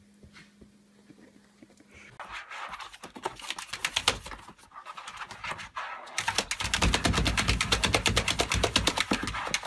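A small terrier panting fast while moving about in a plastic laundry basket: a rapid, regular raspy rhythm that starts about two seconds in and gets louder and denser, with low knocks, about six seconds in. The first two seconds are quiet apart from a low hum.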